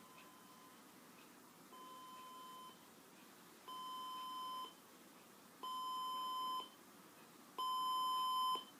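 Five electronic beeps at one steady pitch, each about a second long and spaced about two seconds apart, each louder than the last.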